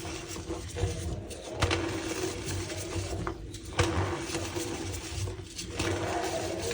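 Reformed gym chalk (powder pressed back into a block) being crushed and squeezed, the packed chalk squeaking and crunching, with a couple of sharp snaps along the way.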